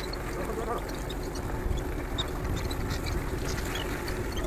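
Fishing boat's engine running steadily, a constant low hum.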